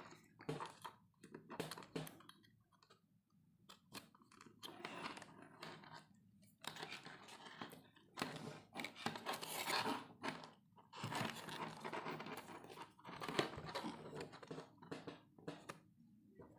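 Irregular crackling and rustling handling noise, with small clicks, from fingers working a jumper wire onto a joystick module's header pins against a clear plastic box.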